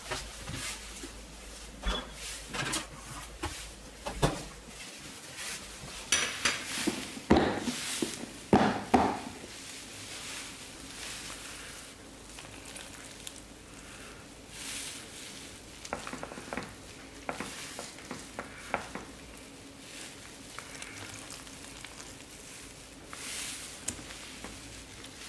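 Metal tongs lifting wet, sauce-coated green onion kimchi from a plastic container onto a ceramic plate: soft wet squelching with scattered clicks of the tongs against the container and plate. A cluster of louder knocks and clatter comes about six to nine seconds in.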